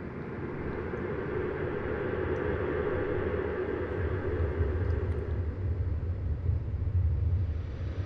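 A low rumbling drone that swells louder over the first few seconds and then holds, with a deep hum underneath.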